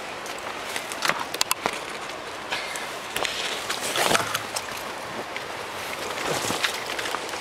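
Footsteps on rocky ground scattered with dry leaves, with clothing rustle and camera handling, over a steady background rush. A cluster of sharp clicks comes about a second in, and a louder scuffing swell comes about four seconds in.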